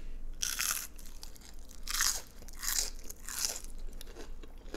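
A person biting into a fried onion ring and chewing it, the coating crunching four times: once about half a second in, then three crunches in quick succession from about two seconds in.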